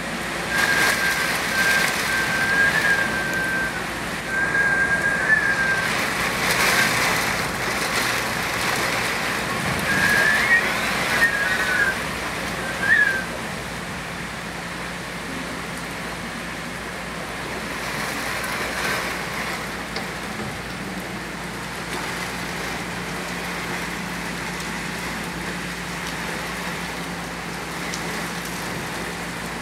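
Heavy wind-driven rain pouring steadily onto dense leafy trees, louder through the first half. A thin, wavering whistle comes and goes in the first few seconds and again around the middle, and a faint steady low hum runs under the rain in the second half.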